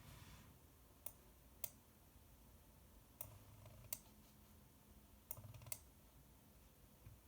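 A few sharp clicks, roughly in pairs, from a computer mouse being clicked, over a faint low hum.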